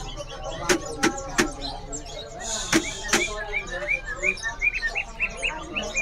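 Caged green leafbird (cucak hijau) singing: a fast series of short rising chirps, about three a second in the second half, with sharp clicking notes earlier on.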